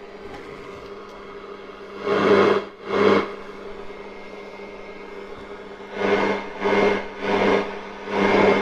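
Hiss of static with a low hum from an untuned portable cassette radio's speaker, swelling in short loud bursts as the volume knob is turned up and back down: twice about two seconds in, then four times in quick succession from about six seconds.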